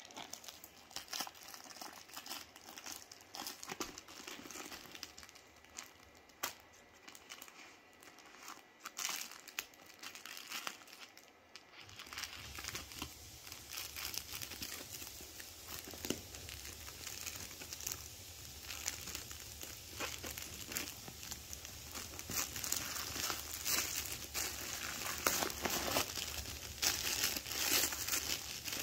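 Plastic parcel wrapping crinkling and tearing as it is cut open with scissors and pulled away by hand, in irregular crackles that grow louder in the second half.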